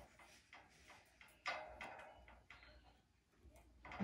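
Chihuahua puppy gnawing on the wire bars of its pet pen: faint, irregular clicks and rattles of teeth on metal, the loudest about a second and a half in, with a short lull near the end.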